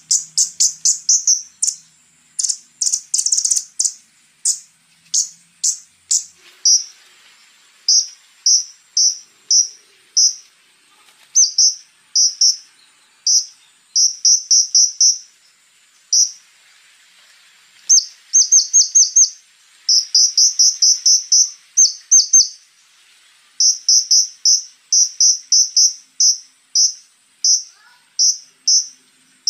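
A konin, a small songbird kept for song in Indonesia, singing quick runs of short, very high-pitched chirps in bursts of several notes with brief pauses between them. A faint, steady, high insect-like buzz runs underneath.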